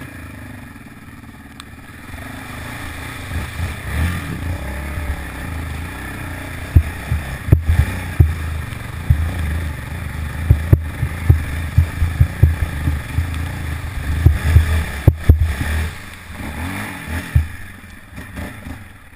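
Yamaha Raptor 700R quad's single-cylinder engine running hard as it ploughs through a flooded, muddy trail, with water splashing and many sharp knocks and thumps from the bike. The engine builds up early, is loudest through the middle, and eases off near the end as the quad comes out onto grass.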